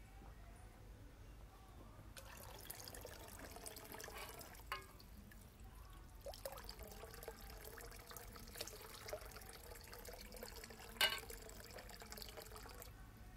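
A thin stream of water trickling and spattering from a bronze dragon-head spout into a stone water basin, starting about two seconds in and stopping just before the end. A couple of louder splashes stand out, the loudest about two-thirds of the way through.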